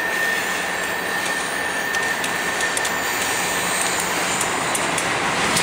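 GE diesel-electric freight locomotives approaching and running past, with a steady high whine that fades out a little past halfway, getting louder near the end as the lead unit comes alongside.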